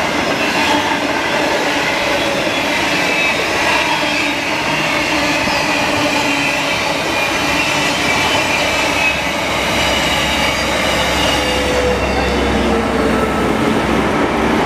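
Container freight train passing at speed, its wagons' wheels rumbling over the rails with high squealing tones. In the last few seconds a Hunter railcar diesel passenger train runs by on the nearer track, adding a deep rumble and a falling tone.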